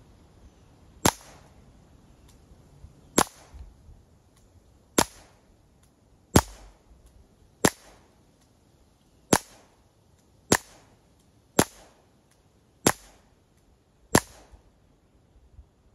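A CO2-powered Powerline BB gun fired ten times in a row, each shot a sharp pop with a short tail, coming one to two seconds apart.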